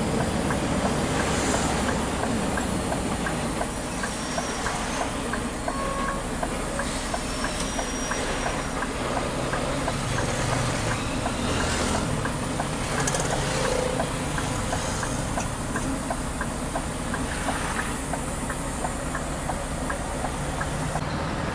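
Scania R580's V8 diesel running steadily while hauling a heavy load, heard inside the cab as a constant rumble mixed with road noise.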